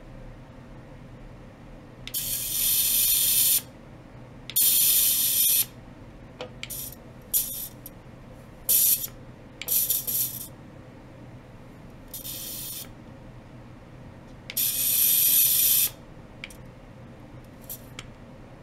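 Spray can hissing in separate bursts: three sprays of about one to one and a half seconds and several short puffs in between.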